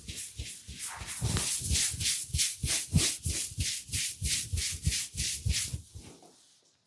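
Hands scratching and rubbing a person's hair and scalp in quick, even strokes, about three to four a second. The strokes fade out about six seconds in.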